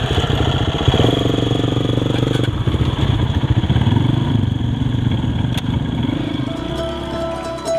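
Dirt bike engines: one close by idles with steady firing pulses, and the revs rise and fall as a second dirt bike pulls away ahead.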